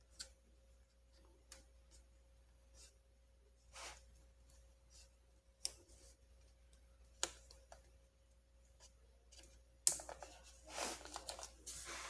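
A plastic pry pick working along the seam of a laptop's plastic bottom case, giving scattered sharp plastic clicks a second or two apart as the case clips are worked loose. The loudest click comes near the end and is followed by a second or so of scraping.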